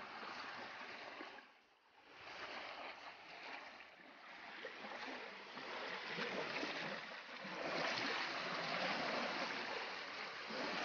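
Small waves washing onto a shore, a steady rushing wash that drops out briefly about one and a half seconds in and grows a little louder later on.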